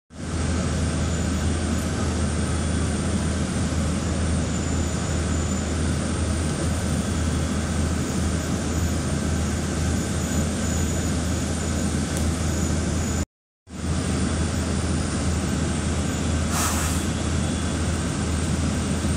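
City bus engine and road noise heard from inside the bus: a steady drone with a deep low hum. The sound cuts out for a moment about 13 seconds in, and a short hiss comes near the end.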